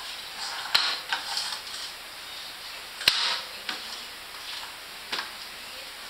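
A baby slapping and patting the lid of a metal butter-cookie tin with its hands: several sharp, uneven taps, each with a brief ring, the loudest about three seconds in.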